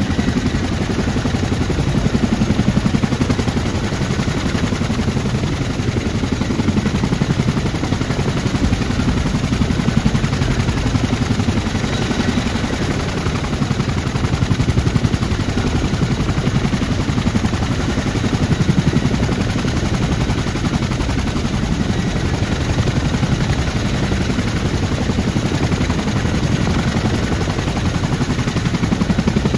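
CH-47 Chinook's tandem rotors turning with the helicopter running on the ground: a loud, steady, rapid chop of blade slap with a deep rumble beneath.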